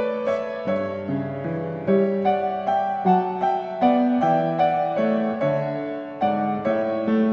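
Background piano music: a gentle melody over chords, each note struck and fading.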